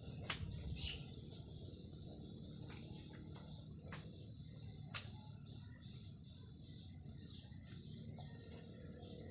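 Steady high-pitched chorus of insects such as crickets, with a few faint taps, one of them about five seconds in.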